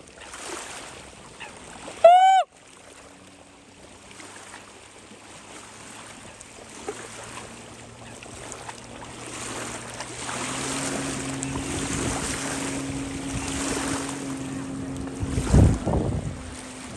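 Jet ski engine running at a steady pitch, growing louder from about ten seconds in as the craft speeds past towing an inflatable tube. A single loud, short call that rises and falls in pitch comes about two seconds in, and wind buffets the microphone near the end.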